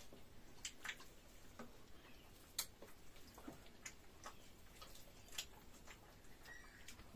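Quiet eating sounds: scattered faint clicks and smacks of chewing and of a spoon or fingers against the plate, coming irregularly, with one sharper click about two and a half seconds in.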